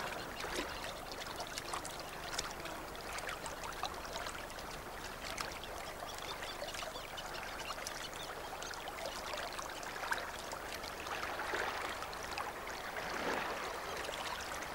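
River water lapping and trickling, dotted with many small splashes and drips, steady and soft.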